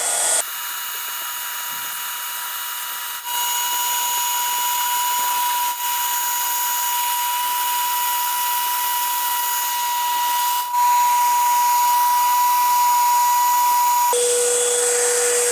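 High-speed electric motor of a power tool whining steadily with a hiss, briefly dipping twice. Near the end it drops to a lower pitch, then winds down.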